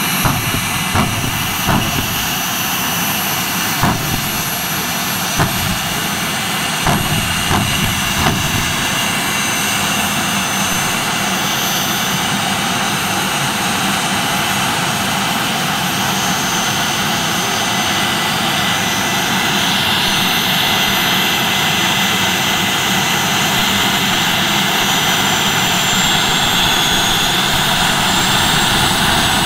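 Jet truck's turbine engine running steadily with a high whine over a broad rush of exhaust, with a series of sharp pops during roughly the first eight seconds. From about two-thirds of the way in the whine grows a little louder and brighter.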